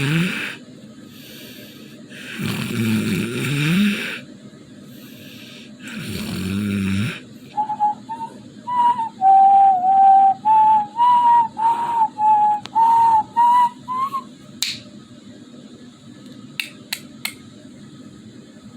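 A sleeping person snoring loudly, a harsh snore every three to four seconds. These are followed by about six seconds of short whistled notes stepping up and down in pitch, then a few faint clicks.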